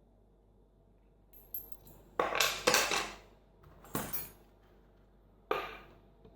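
Small metal lock parts clinking and clattering as a Russwin mortise cylinder is taken apart. A few light clicks about a second and a half in, then a run of louder clatters around two to three seconds, with two more, about four and five and a half seconds in.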